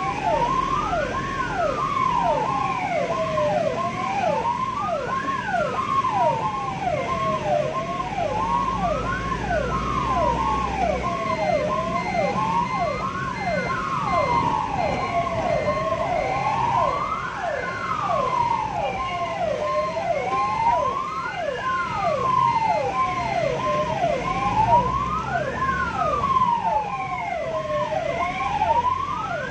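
Electronic ambulance sirens sounding continuously. A slow wail rises and falls about every four seconds, overlapped by a fast, repeating falling yelp. Low road rumble from the moving vehicle runs underneath.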